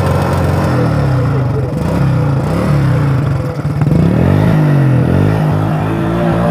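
Motorcycle engine running through its original exhaust, steady at first, then revved up and down several times in quick blips.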